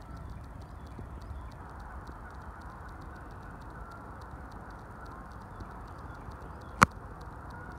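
Wetland woods ambience: a steady low background with faint, distant bird calls and a faint, fast, even high ticking. Near the end it is cut by one sharp, loud crack or knock.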